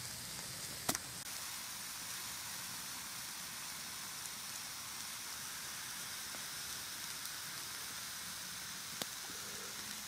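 A pan of mushrooms, green peppers, red onion and beef steak frying with a steady sizzle, with a couple of sharp pops, one about a second in and one near the end.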